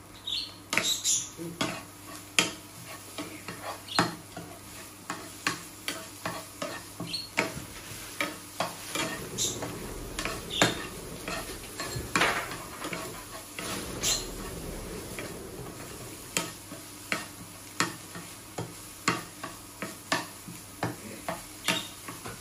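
Large metal spoon stirring and scraping shredded parotta with egg in a hot frying pan, clinking against the pan one or two times a second, irregularly, over a low sizzle of the food frying.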